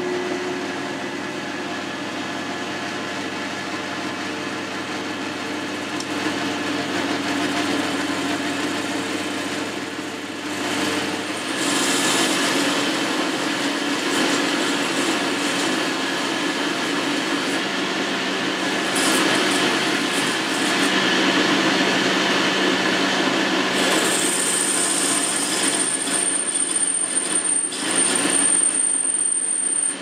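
Boxford metal lathe running with a steady hum while a grooving tool cuts a groove into the spinning part. About twelve seconds in the cut gets louder and harsher. Later a thin high-pitched squeal from the tool joins in.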